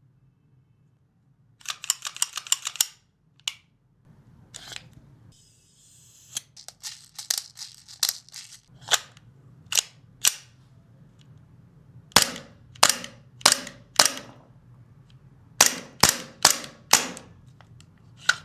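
GHK Glock 17 Gen 3 gas blowback airsoft pistol firing, each shot a sharp crack. The shots come in groups: a fast string about two seconds in, then several slower strings of single shots spaced about half a second to a second apart.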